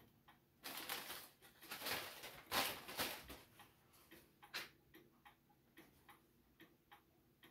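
Antique Ingraham gingerbread kitchen clock's pendulum movement ticking, with louder noises in the first few seconds. It is out of beat, so the tick-tock is uneven.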